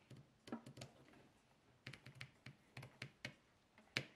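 Scissors snipping through a microfiber kitchen towel: a string of faint, uneven clicks of the blades closing, the loudest one near the end.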